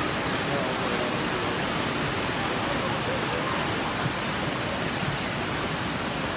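Flash floodwater from a burst river embankment rushing in a muddy torrent down a narrow lane: a steady, unbroken rushing of water.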